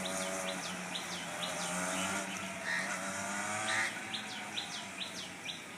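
A bird chirping: short calls that each drop quickly in pitch, a run of about four in the first two seconds and another five or six from about four seconds in, over a low steady hum.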